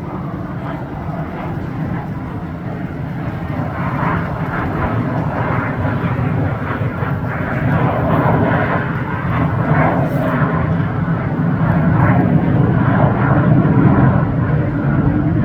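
F-16 fighter jet flying overhead: a steady, low jet-engine rumble that grows gradually louder as it comes nearer.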